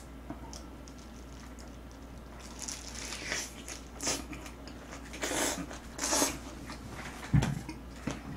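Close-up eating sounds of a mouthful of boiled pork (bossam) with green onion kimchi. A few seconds in comes a run of wet biting and chewing noises, and there is a single low thump near the end.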